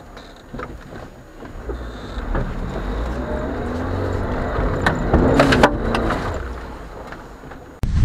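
Lada 4x4 (Niva) engine straining under load as the car climbs a sandy slope, heard from inside the cabin: the engine note swells for about three seconds, then fades. Several sharp knocks from the body and suspension come in the middle.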